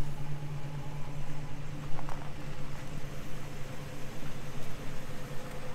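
Box truck engine idling steadily with a constant low hum.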